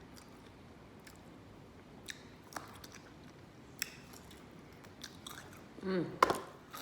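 A person chewing and eating chicken wings close to the microphone, with scattered soft mouth clicks. About six seconds in there is a short vocal sound and a sharp, loud smack.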